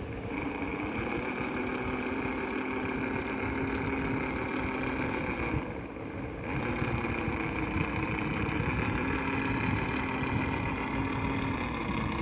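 Electric motor and gear drive of a 1/10-scale 4x4 RC crawler (upgraded FTX Mauler) whining steadily as it crawls, stopping briefly about six seconds in and then starting again.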